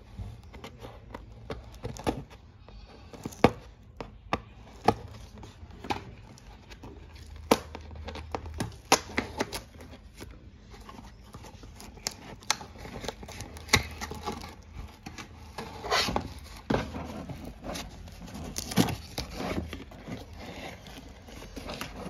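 Cardboard box being handled and opened by hand: irregular sharp taps and clicks with crinkling of cardboard and packing.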